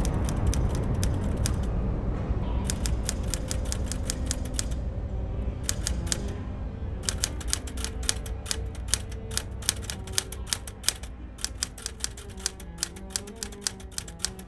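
Typewriter keys clacking in irregular bursts of rapid strokes with short pauses between, over background music with sustained low notes that fades down.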